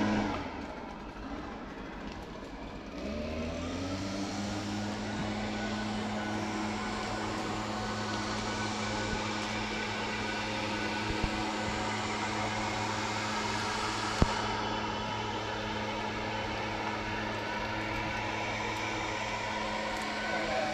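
A motor engine speeds up about three seconds in, then runs at a steady idle.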